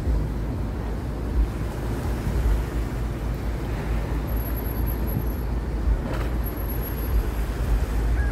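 Wind buffeting the microphone with an uneven low rumble, over small waves washing onto the shore. A single sharp click about six seconds in.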